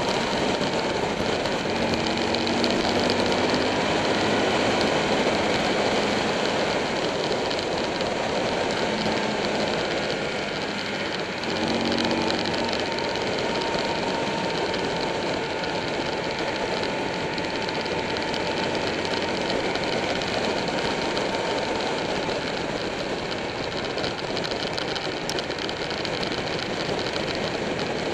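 Motorcycle riding at road speed, heard from a camera mounted on the bike: a steady rush of wind noise over the running Buell 1125R's V-twin engine, whose pitch shifts a few times as the rider works the throttle through the bends.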